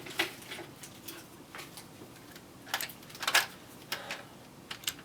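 Scattered light clicks and knocks of hard plastic toy pieces being handled, about half a dozen, the loudest about three and a half seconds in.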